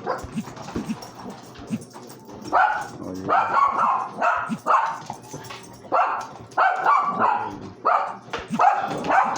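A pet dog barking over and over, one to two barks a second, starting about two and a half seconds in.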